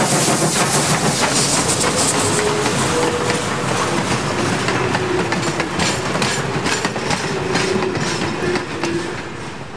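Steam train passing close by: Pennsylvania Railroad 643's cylinder steam hissing at first, then the open coaches and caboose rolling past with wheels clicking over the rail joints, the sound easing off near the end as the train moves away.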